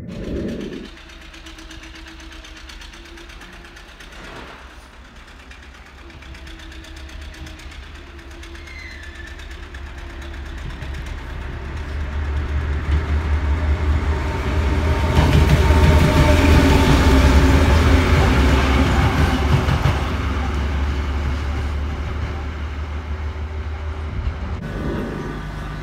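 Diesel locomotive hauling a long train of open freight wagons past, engine running with a low rumble and the wagons rolling on the rails. It grows louder as the locomotive draws level about halfway through, then eases off as the wagons keep rolling by.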